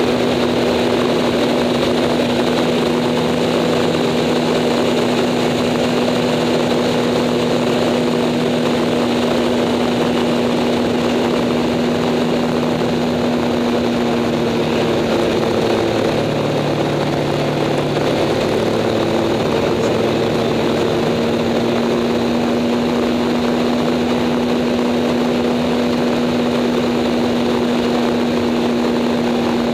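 Stolp SA-750 Acroduster biplane's piston engine and propeller running steadily in flight, heard from the cockpit. The engine note wavers and shifts briefly about halfway through, then settles back.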